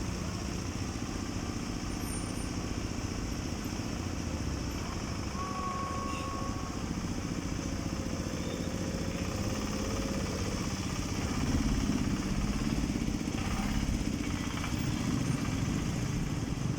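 Motor vehicle engine running, growing louder about eleven seconds in, with a short high whine about five seconds in.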